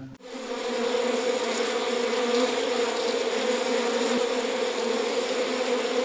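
Honeybees buzzing en masse: the steady hum of a crowded colony, fading in over about the first second.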